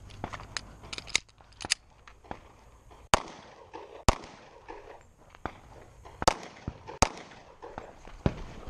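Pistol shots: a string of sharp cracks at uneven intervals, the loudest about three, four, six and seven seconds in, with lighter cracks in the first two seconds.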